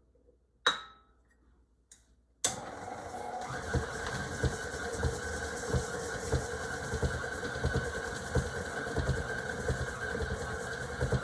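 A single click, then about two seconds in a stand mixer fitted with a paddle attachment switches on and runs steadily: a motor hum and whine with light irregular knocking underneath. It is working stiffer flour into soft, still-sticky bread dough.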